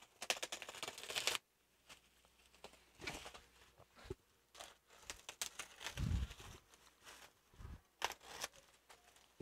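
Black bubble-wrap packaging being slit with a box cutter and peeled off a cardboard box: scattered crinkling and tearing of plastic, with a couple of dull thumps of the box being handled about six and eight seconds in.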